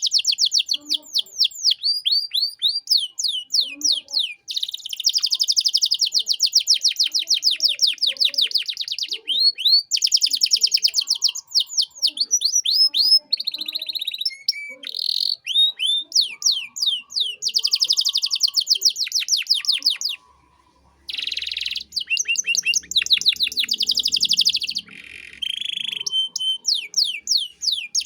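Domestic canary singing a long, fast song of rapid trills and rows of quick sweeping notes, with a pause of about a second roughly two-thirds of the way through.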